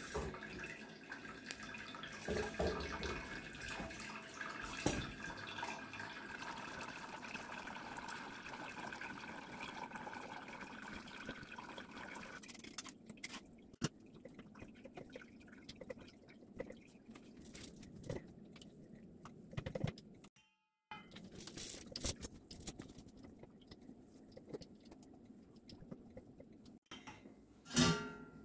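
Thick turmeric dye liquid trickling and dripping through a straining cloth and sieve into a pot, steady for about twelve seconds. It then gives way to a quieter stretch of small knocks and handling sounds, with a louder clatter near the end.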